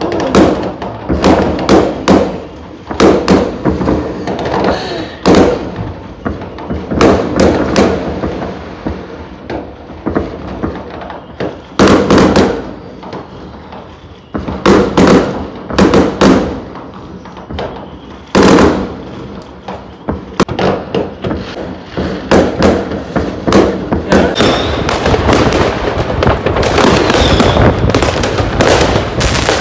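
Fireworks and firecrackers going off: loud, sharp bangs in irregular clusters a few seconds apart, building into a dense, near-continuous volley of bangs and crackle over the last few seconds.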